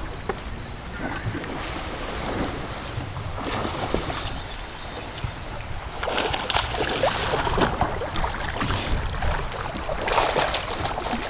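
Wind buffeting the microphone over choppy water slapping around the boat, with a bass splashing at the surface beside the boat about ten seconds in.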